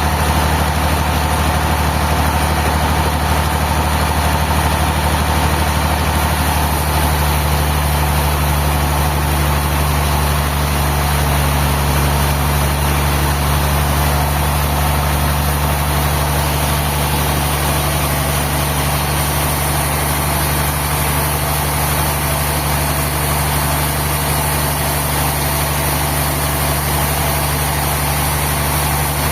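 A sawmill engine running steadily at an even speed, with a deep constant hum that does not change in pitch or load.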